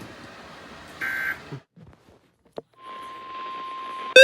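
Radio static hiss with a short burst of electronic data tones about a second in. A sharp click follows, then a faint steady beep tone over renewed hiss. Right at the end a loud alert tone starts rising in pitch like a siren.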